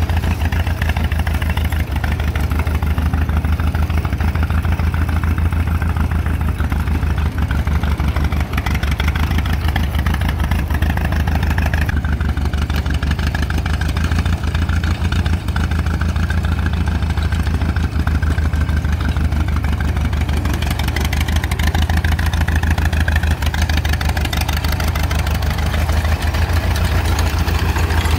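1920 Cletrac Model W 12-20 crawler tractor's four-cylinder engine running steadily as the tractor drives along.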